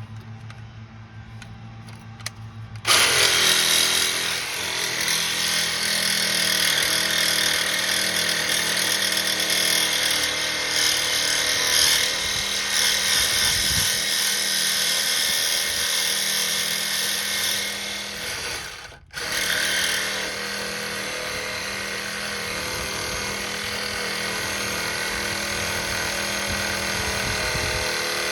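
A power tool starts about three seconds in and runs steadily under load, stopping briefly once partway through. It is being used to get a stripped, seized sway bar link bolt off.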